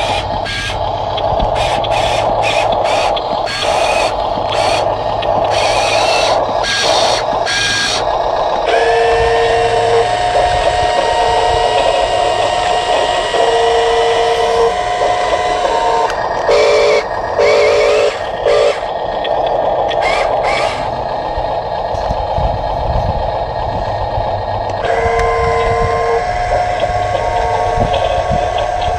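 An RC dump truck's electronic sound effects: a steady truck-engine drone with several short runs of reversing beeps, and a quicker string of beeps about two-thirds of the way through.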